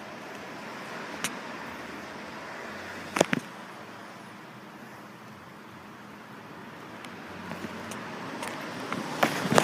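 Road traffic on a rain-wet street: a steady hiss of car tyres that grows louder over the last few seconds as a car comes closer. There is a faint click about a second in and a short double knock about three seconds in.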